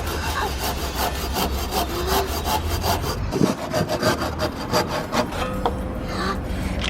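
A saw cutting through a wooden board in rapid, even rasping strokes.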